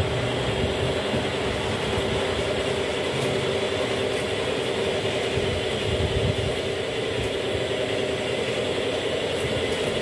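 Model train running along the layout track: a steady rolling noise of the wagons on the rails with a constant hum from the locomotive's motor.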